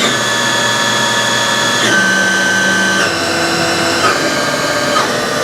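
Haas Super Mini Mill's 15 hp CNC spindle running at high speed, 6,000 RPM or above, during a warmed-up speed run. It makes a steady whine of several high tones that shift to new pitches in small steps about once a second.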